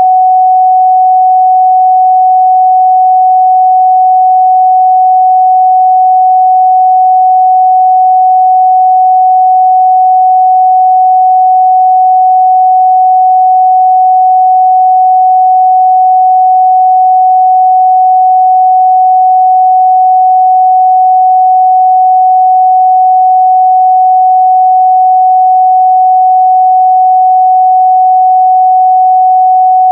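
A steady, pure 744 Hz sine-wave test tone, one unchanging pitch held without a break.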